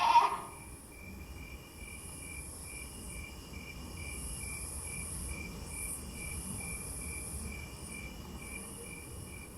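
Crickets chirping in a steady night chorus: short, evenly repeated chirps several times a second, with a higher trill coming and going over them.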